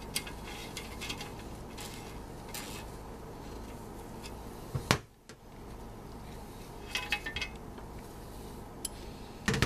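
Quarter-inch drive socket and extension turning a threaded hex plug out of a Mopar A904 TorqueFlite transmission case: scattered metallic clicks and clinks, with one sharp clink about five seconds in.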